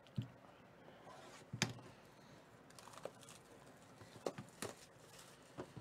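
Hands handling a shrink-wrapped cardboard box of trading cards, fingernails picking at the plastic wrap: a few short, sharp crinkles and clicks, the loudest about a second and a half in.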